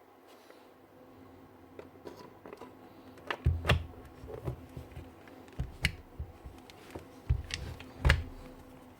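Hard parts being handled and set down on a workbench: quiet at first, then a few sharp clicks and knocks with dull thuds from about three seconds in, the loudest near the end.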